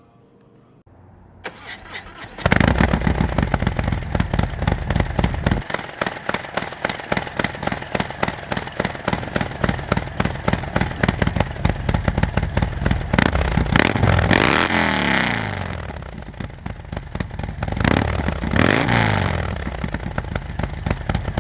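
Harley-Davidson Fat Bob's 114 cubic inch V-twin, breathing through an S&S SuperStreet 2-into-1 exhaust, comes in loudly about two seconds in and runs with a rapid pulsing beat. Its revs sweep up and back down twice, near the middle and again near the end.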